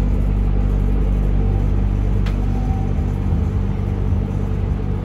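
Steady low mechanical rumble and hum, with one short click about two seconds in.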